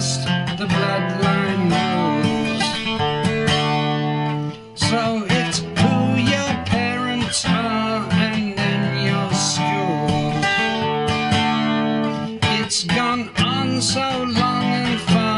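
Strummed steel-string acoustic guitar with a man singing along, dropping out briefly about four and a half seconds in.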